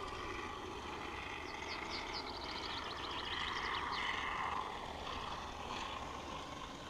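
Polyurethane gun foam hissing out of a foam gun's nozzle as it is pressed into a gap between XPS insulation boards, a little stronger about halfway through. A rapid run of short high chirps sounds in the background about two seconds in.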